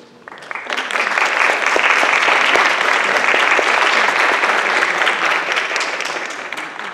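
Audience applauding, swelling over the first second, holding steady, then tapering off near the end.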